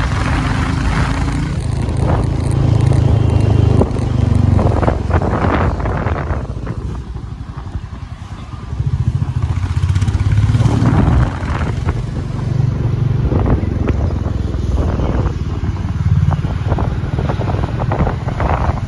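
Royal Enfield motorcycle engine running as the bike is ridden, heard from on the bike. The engine eases off about seven seconds in, then picks up again a couple of seconds later.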